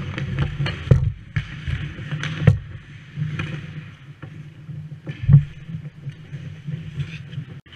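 Ice hockey play at the goal crease: skates scraping and carving the ice, with sharp knocks of sticks, puck and goalie pads, the loudest about five seconds in, over a steady low hum.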